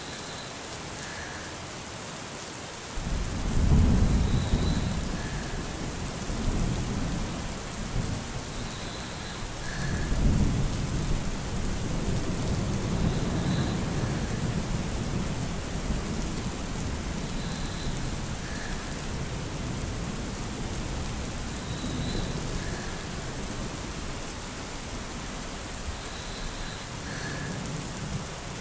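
Steady rain with rolling thunder. The rain hiss is constant, and low thunder rumbles swell about three seconds in and again about ten seconds in, then roll on more softly.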